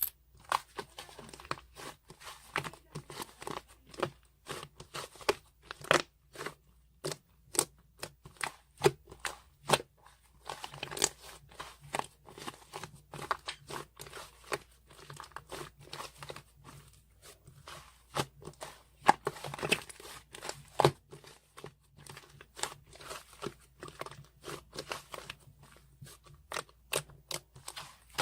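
A squishy toy being squeezed and pressed by hand over and over, giving a dense, irregular run of crinkling, crackling sounds.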